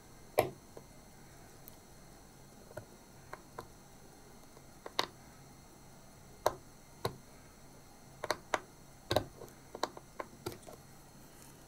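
Sharp, irregular clicks of steel tweezers working against a watch case as an old, hardened caseback gasket is picked out in little pieces. The clicks come singly with gaps at first, the loudest just after the start, and crowd closer together in the last few seconds.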